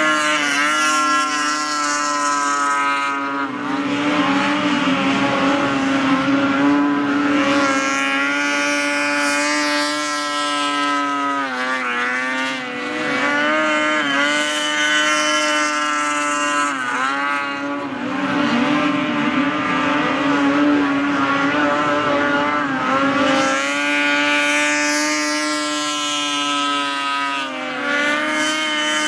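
Racing snowmobile engines running at high revs as the sleds skim across open water, a steady high whine whose pitch dips and climbs again every few seconds, with the hiss of spray.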